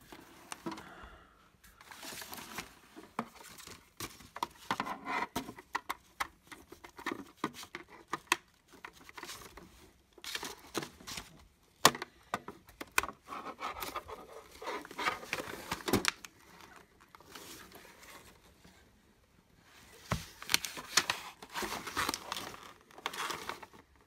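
Handling noises from connecting cables to a cable TV box: irregular clicks, knocks and scrapes of connectors and the plastic case, with rustling, and one sharp click about halfway through.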